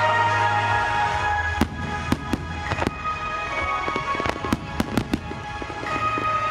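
Aerial fireworks going off in a quick run of about a dozen sharp bangs and cracks, from about one and a half seconds in until about five seconds in, over steady music.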